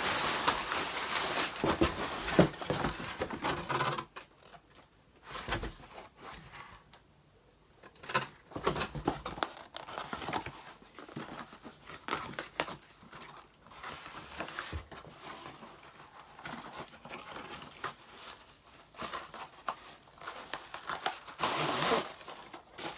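Packaging being rustled, crinkled and torn as a box is unpacked: steady dense rustling for the first four seconds, then quieter scattered rustles and knocks, with another burst of rustling near the end.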